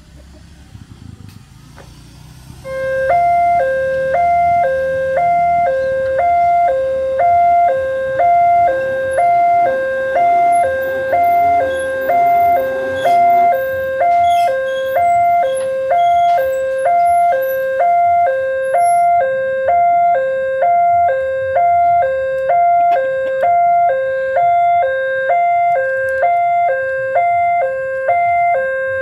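Level-crossing warning siren from the loudspeaker horn on the ALKMAAR crossing post, starting about three seconds in and sounding a loud two-tone alarm, switching between a high and a low pitch roughly every two-thirds of a second: the signal that a train is coming and the barriers are closing.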